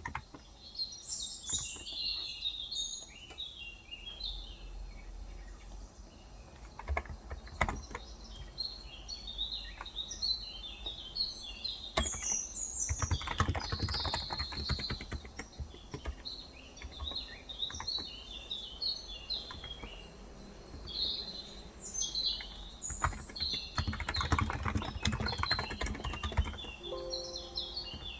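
Small birds chirping in quick, busy runs, with bursts of typing on a Cox Endeavor electrocapacitive (35 g) tenkeyless keyboard: three spells of rapid key presses, the longest near the middle and another about three-quarters of the way in.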